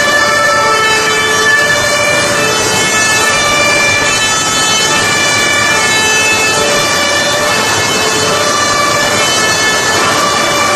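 Several German two-tone emergency-vehicle sirens (Martinshorn) sounding at once and out of step with each other, their alternating pitches overlapping. Under them is a steady hiss of heavy rain.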